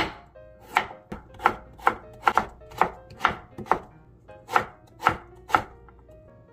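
Kitchen knife cutting and mincing a carrot on a wooden cutting board: about a dozen sharp knocks of the blade on the board, roughly two a second, stopping near the end.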